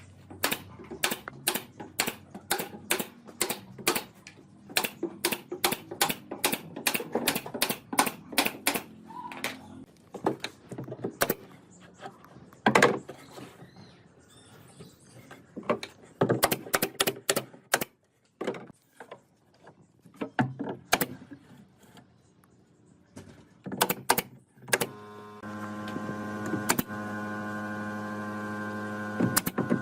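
Woodworking tool strikes: sharp knocks in quick runs of about two or three a second, broken by pauses. Near the end a small electric motor hums steadily for about five seconds.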